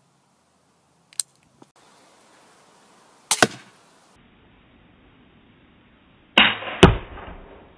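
Pistol crossbow shooting twice, after a couple of small clicks. Each shot is a sharp snap followed a fraction of a second later by a second hit as the bolt strikes the target; the second shot is louder.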